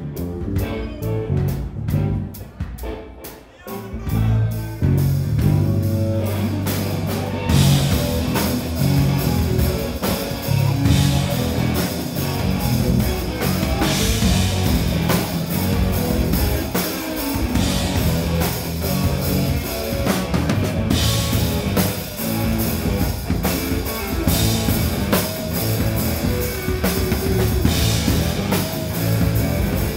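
Live rock band playing, led by an electric guitar. The guitar plays sparsely at first, then the drums and the low end come in about five seconds in, and the full band plays on with cymbals.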